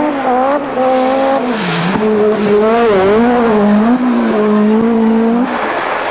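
Group B rally car engine at high revs on a gravel stage. The pitch dips and climbs several times as the driver lifts, shifts and gets back on the throttle, wavering for a moment around the middle. About five and a half seconds in, the engine note drops away and a hiss of noise is left.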